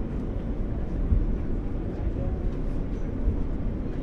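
NYC subway Q train heard from inside the car while it runs: a steady, deep rumble of wheels and car body on the track, with a brief louder bump about a second in.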